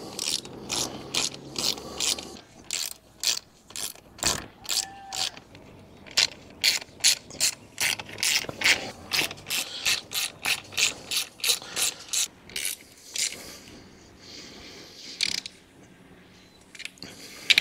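Small hand ratchet clicking in quick back-and-forth strokes, about two to three a second, as a fixing bolt is tightened. The strokes thin out after about 13 seconds, with a few more near the end.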